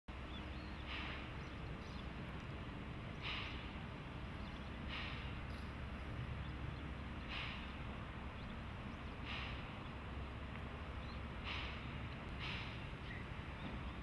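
C11 steam tank locomotive chuffing slowly as it moves off, a sharp exhaust blast from the chimney every second or two over a steady low rumble.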